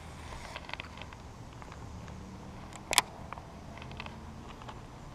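Handling noise from a baitcasting rod and reel during a cast and retrieve: scattered light clicks, with one sharp click about three seconds in.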